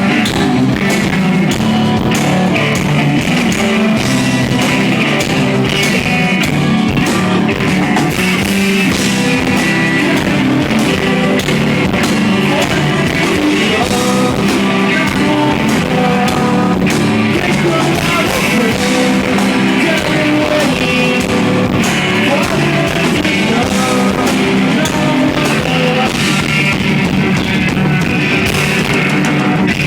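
A rock band playing live, loud and dense: electric guitars and a drum kit keeping a steady beat, with some singing, as picked up by an iPod's built-in microphone.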